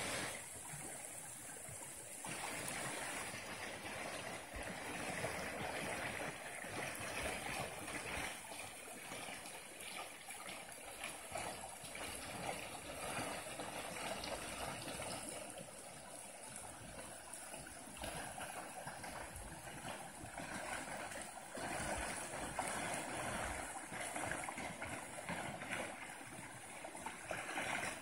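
Steady rush of shallow creek water flowing over riffles.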